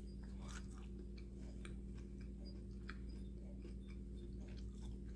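A person chewing a bite of breaded fried chicken wing: scattered soft, wet mouth clicks and smacks over a steady low hum.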